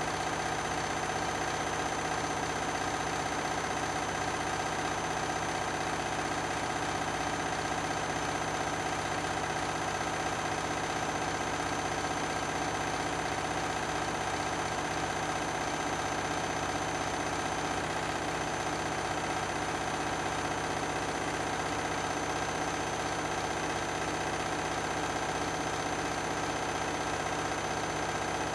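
Beko and Candy washing machines spinning at a steady speed: a constant drum hum with a fixed motor whine, unchanging in pitch and level.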